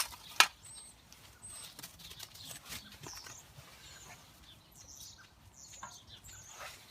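A sharp wooden knock about half a second in as a piece of firewood is set into a wood-burning stove, then a quiet stretch with faint bird chirps.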